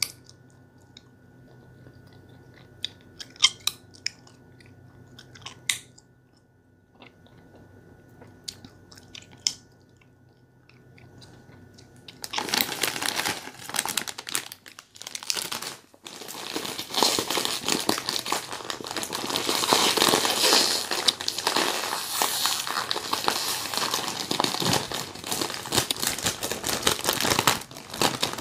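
Bubble gum chewing, with scattered sharp wet clicks and smacks a second or two apart. About twelve seconds in, a much louder, dense crackling and rustling close to the microphone takes over and runs on almost to the end.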